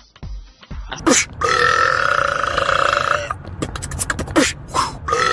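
A man burping: one long drawn-out belch lasting about two seconds, followed by a few short clicking sounds, with another long belch starting near the end.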